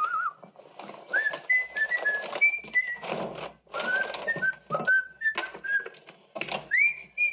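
A man whistling a tune in short stepping notes over repeated clatter and knocks of kitchen things.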